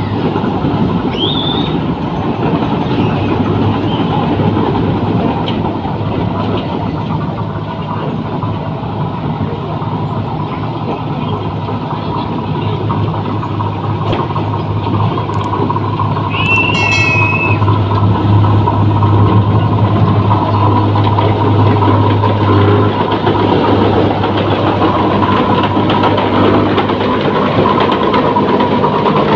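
New Holland paddy combine harvester's engine running steadily, growing a little louder about halfway through. Two short high squeaks stand out, one near the start and one about halfway.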